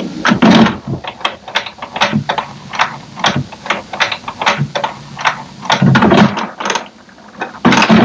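HP Smart Tank 580/5100 inkjet printer's internal mechanism clicking and clunking irregularly, a few knocks a second over a low whir, with a louder burst of clatter near the end. This is the printhead carriage and service station working through a level 2 printhead cleaning.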